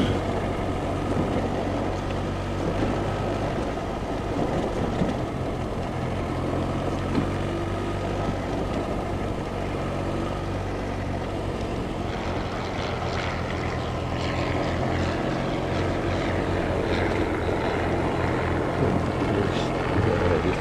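A light propeller aircraft's piston engine running steadily at low power, as when taxiing or holding for take-off.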